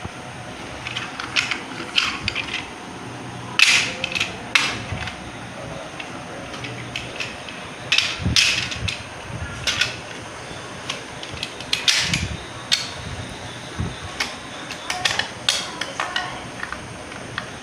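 Plastic toy cars being handled and knocked together: irregular clicks and clacks, with a few louder knocks, over a steady background hiss.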